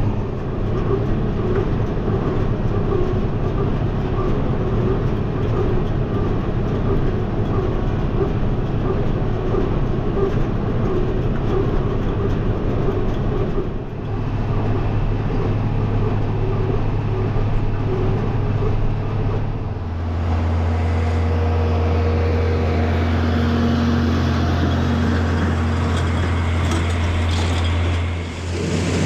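Tractor engine running steadily under load while baling hay with a small square baler. The engine note changes abruptly about 14 and 20 seconds in, dropping to a deeper, steadier hum after the second change.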